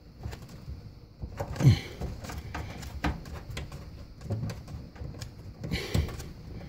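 Scattered small clicks and scrapes of a hand turning the water supply line's nut at a dishwasher's inlet valve to disconnect it. Two louder, lower sounds come about a second and a half in and near the end.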